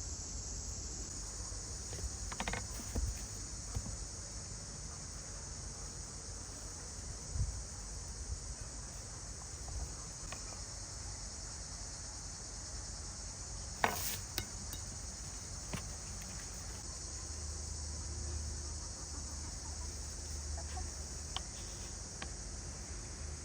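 Steady high-pitched chirring of an insect chorus. Over it come a few sharp clinks and knocks of cooking utensils and pots, the loudest about fourteen seconds in.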